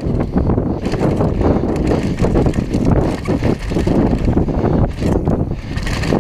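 Downhill mountain bike ridden fast down a trail, with steady wind rush on the microphone. The bike rattles and knocks continually as it crosses a wooden ramp and rough dirt.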